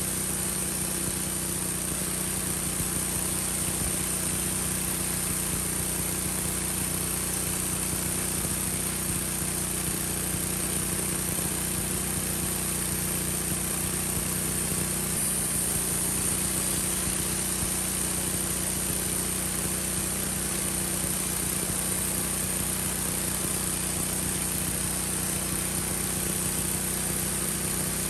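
Wood-Mizer LX150 portable band sawmill running steadily, its engine driving the band blade as it cuts along a log, with a constant high whine over the engine. The sound stops suddenly at the very end.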